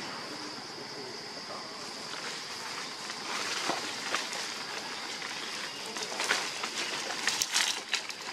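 Crackling rustles of leaves and branches as a baby macaque climbs through a tree. The crackles start about two seconds in and get louder and more frequent near the end, over a steady high-pitched hiss.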